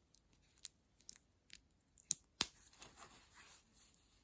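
Plastic Lego bricks of a small steering-wheel model clicking and tapping as it is handled: a handful of scattered sharp clicks, the two loudest close together about two seconds in.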